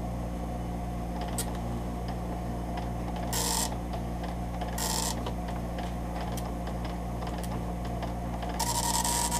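Epson MX-80 III nine-pin dot matrix printer printing a test page: the impact print head buzzes across the line in passes, two short ones in the middle and a longer one starting near the end.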